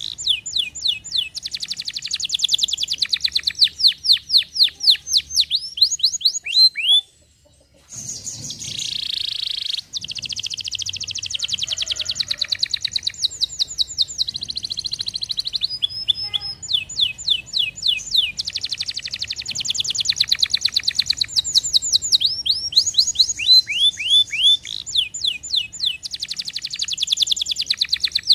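Domestic canary singing: fast trills of rapidly repeated falling whistle notes, the phrase changing every few seconds, with a brief break about seven seconds in.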